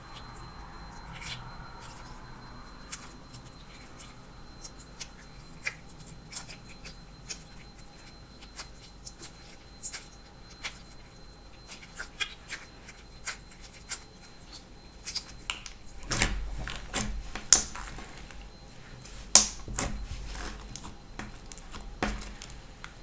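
Hands working slime: scattered sharp clicks, pops and crackles, coming thicker and louder for several seconds near the end.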